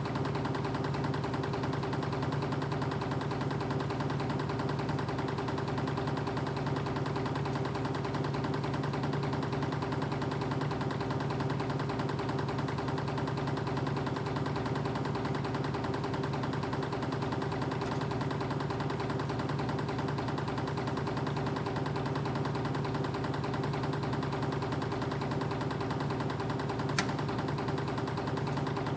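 Wire-feeding spring machinery, a reciprocating wire uncoiler feeding a spring machine, running steadily with an even mechanical hum and fast rattle, and a single sharp tick near the end.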